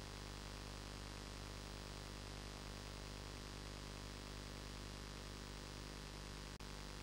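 Steady hiss with a low electrical hum underneath and no other sound. It drops out for an instant near the end.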